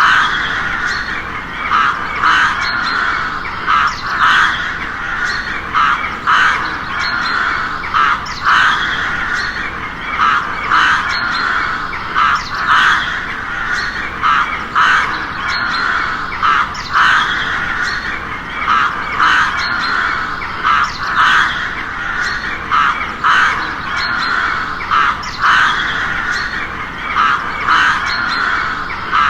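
Crows cawing: short, harsh caws repeat about once or twice a second without a pause, overlapping one another.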